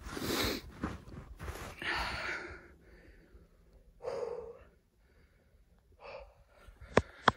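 Several separate breaths or exhalations close to the microphone, with quiet gaps between them, and two sharp clicks near the end.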